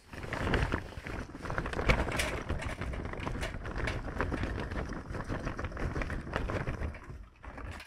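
Lump charcoal poured from a paper sack into a metal chimney starter: a continuous clattering rattle of chunks tumbling onto each other and the metal, with sharper knocks from the bigger pieces. It stops shortly before the end.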